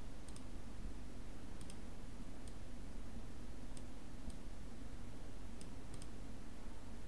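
Computer mouse button clicks, single and in quick pairs, scattered every second or so as design elements are selected and duplicated. A faint steady low hum runs underneath.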